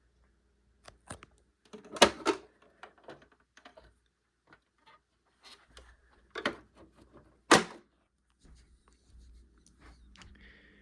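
Handling noises: a scattered series of sharp clicks and knocks, the loudest about two seconds in and twice more about six and a half and seven and a half seconds in.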